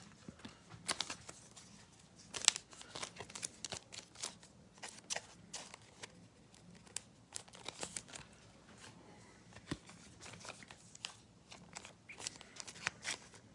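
Trading cards and their plastic sleeves and foil pack wrappers being handled: scattered soft clicks, crinkles and rustles at an irregular pace, some slightly sharper snaps now and then.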